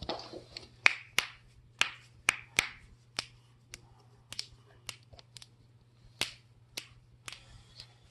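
Back joints cracking during a self-adjustment: about fifteen sharp pops, spaced irregularly at one or two a second.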